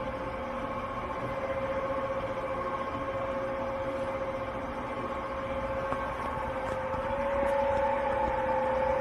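Sharp 1440F toolroom lathe running at low spindle speed with the threading gears and power feed engaged. It gives a steady gear whine with a second, higher tone, getting slightly louder near the end.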